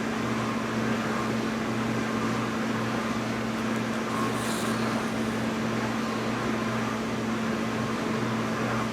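Steady background hum: a constant low drone with an even hiss, unchanging throughout.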